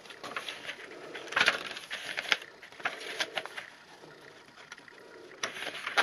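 Paper journal pages being turned and handled: dry rustling with several sharp crinkles and flicks of stiff paper.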